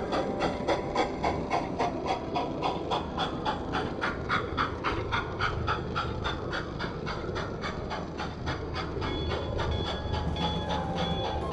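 Model steam locomotive running along the track, with a rapid even beat of about five pulses a second that blurs into a steadier running noise in the second half.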